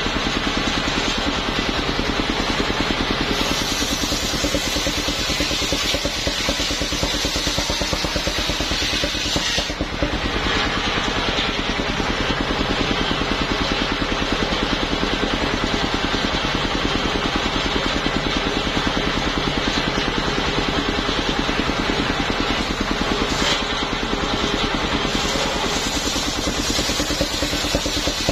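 Engine-driven homemade mobile sawmill running steadily, its large circular blade ripping lengthwise through a waru log. The engine chugs evenly under a constant cutting hiss, with a brief dip about ten seconds in.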